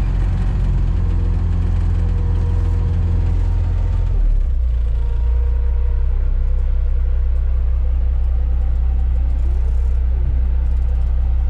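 Fishing boat's engine running steadily, heard from inside the wheelhouse; about four seconds in its pitch drops and settles lower as the throttle is eased back to come up on the drifting kayaks.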